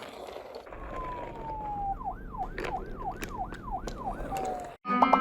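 Toy emergency-vehicle siren: a falling tone, then about six quick rising-and-falling sweeps, then a short falling tone, with light clicks throughout. It stops abruptly near the end, and music starts.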